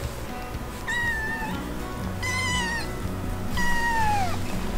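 Two-month-old kitten meowing three times, high-pitched; the third meow is longer and drops in pitch at the end.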